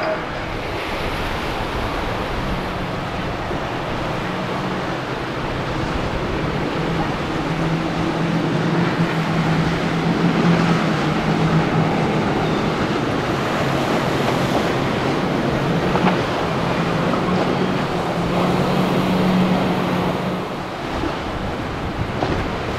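Wind buffeting the microphone over surf in the inlet, with the steady low drone of boat engines running through it. The engine drone swells about halfway through and again near the end, then fades.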